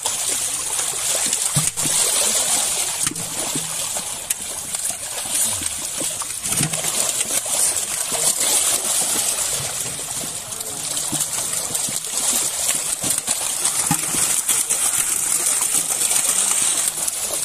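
Lake water splashing and trickling steadily, with scattered sharper splashes.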